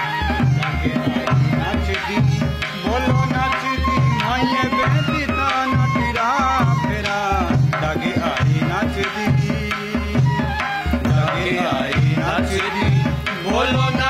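Music with a steady, deep drum beat under a high melody line that bends up and down in pitch.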